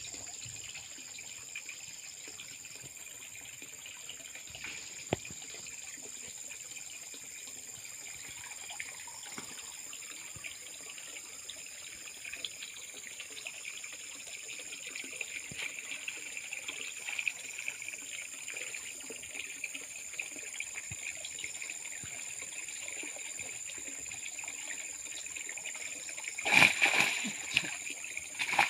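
Water trickling and lapping around a man wading waist-deep in a muddy fish pond, his hands working under the surface, with a burst of loud splashing near the end. A steady high-pitched hiss runs underneath.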